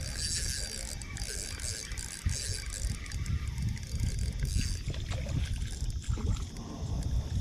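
Spinning reel being cranked to bring in a hooked fish, its gears whirring with small clicks; the whirring fades about halfway through. A low rumble sits underneath.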